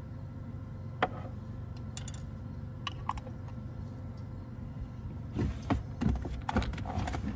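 A few sharp clicks of a metal fork and glass jar as sun-dried tomatoes are lifted out and the jar is closed, then a cluster of louder knocks and rustling near the end as the jar is put away, over a steady low hum.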